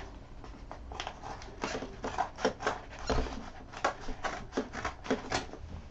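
Scissors cutting through a brown paper mailer: a run of short snips, about three a second, starting about a second in.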